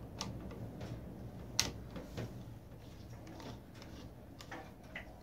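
Flat-bladed screwdriver turning the worm screw of a hose clamp, giving faint, irregular small clicks and ticks, with one sharper click about a second and a half in.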